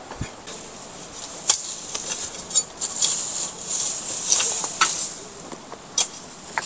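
Footsteps crunching on loose broken stone, a few separate crunches, over a high steady buzz of insects that swells in the middle.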